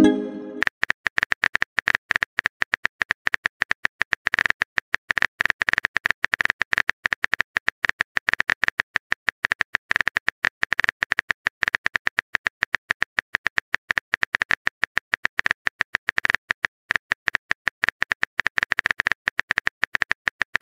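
Simulated phone-keyboard typing sound effect: rapid, irregular taps, several a second, marking a text message being typed. It opens with the tail of a short message-sent pop.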